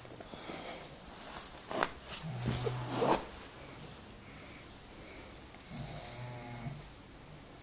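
A person snoring in slow, regular breaths. A louder snore about two and a half seconds in ends in sharp snorts, and a softer snore follows about six seconds in.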